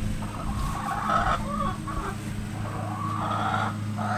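Chickens clucking, a string of short calls and one longer call past the middle, over a steady low hum.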